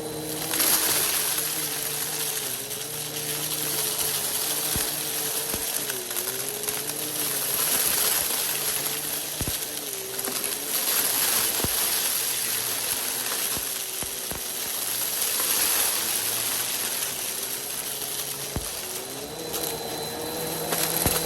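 Vacuum cleaner with its brushroll on, motor running with a hiss of airflow and a hum that dips in pitch now and then, while dry rice, macaroni and beans rattle and click as they are sucked up.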